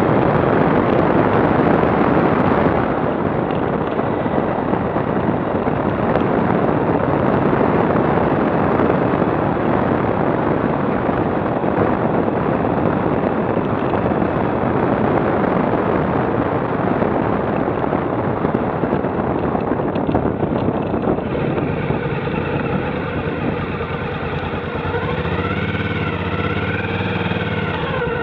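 Motorcycle on the move recorded by a camera mounted on the bike: a heavy rush of wind over the microphone, with the engine note coming through more clearly in the last several seconds as the bike slows, its pitch rising and falling near the end.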